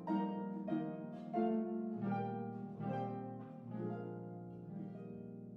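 Background music: gentle plucked notes, harp-like, over sustained low tones, with a new note about every half second.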